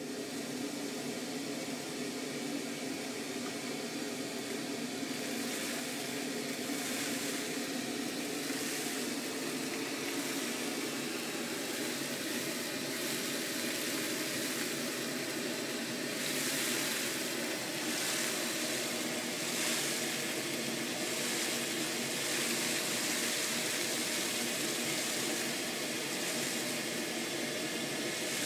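CamVac dust extractor running on one of its two motors, drawing air and sawdust up a hose into a Thien cyclone separator: a steady motor drone with a rush of air. From about five seconds in, a hiss swells and fades as the nozzle takes in dust.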